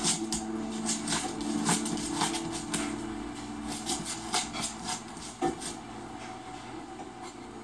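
A run of sharp clicks and clatters from a fan base being knocked about by a playing Alaskan Malamute puppy. They come about two a second at first, then sparser, with a louder knock about five and a half seconds in.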